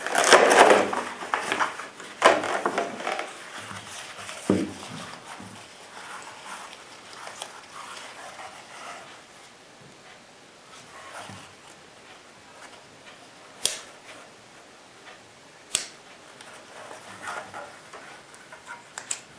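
An Ergo single point tactical sling being taken out of its packaging and handled: rustling for the first few seconds, then quieter handling with a few sharp clicks, two of them louder near the end.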